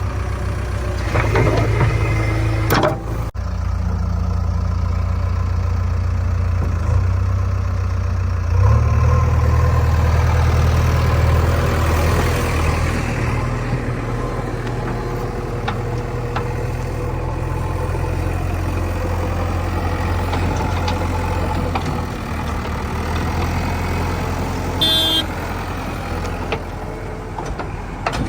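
Diesel engine of a backhoe loader running steadily, revving up about eight seconds in and easing back down. There is a brief high-pitched whine near the end.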